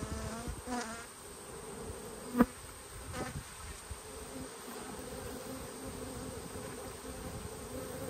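Honey bees buzzing in a steady hum over an opened hive box, with a sharp crack about two and a half seconds in as a metal hive tool prises the frames apart.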